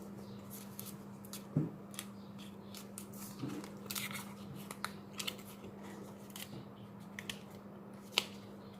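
Scattered small clicks and crackles of a thin pry tool working between a cracked phone screen and its frame, the glued-on display separating from the frame, with a sharper click near the end. A steady low hum runs underneath.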